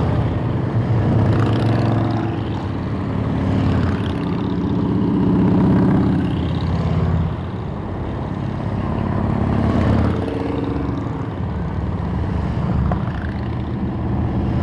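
Several motorcycle engines running together as a group of bikes rides past at low speed. Their engine notes overlap and shift in pitch, and the sound swells about six and ten seconds in.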